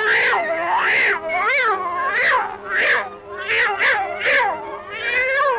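Cartoon cat yowling in a quick, rhythmic string of about ten meows, each bending up and then down in pitch so that together they make a tune. The yowls come as the cat's tail is pulled and it is swung by the tail.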